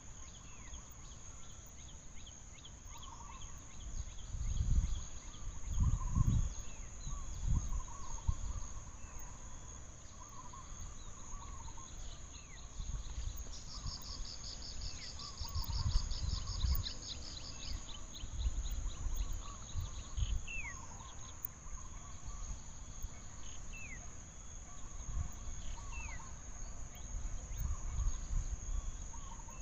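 Tropical forest ambience. Insects keep up a steady high drone, with a rapid insect trill a little under halfway through, and a few short falling bird calls come in the second half. Low rumbling surges come and go underneath, most likely wind or handling on the microphone.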